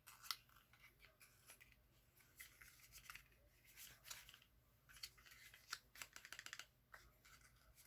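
Faint rustling and light clicking of a small cosmetic lip product's packaging being handled and opened, with a quick run of light clicks about six seconds in.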